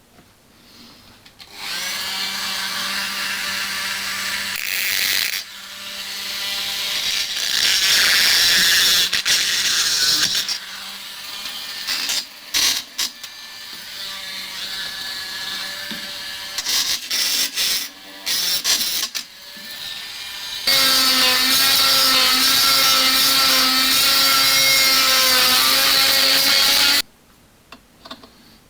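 Dremel rotary tool cutting into the seized bush on a stuck engine mounting bolt, running in several stretches with short pauses between them. It ends with a steady high whine that cuts off near the end.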